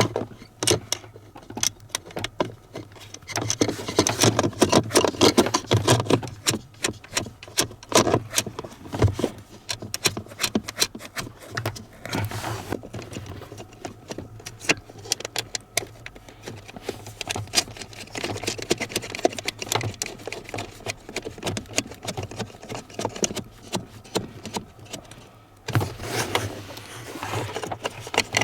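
Irregular clicks, knocks and rattles of parts being handled, over a steady low hum.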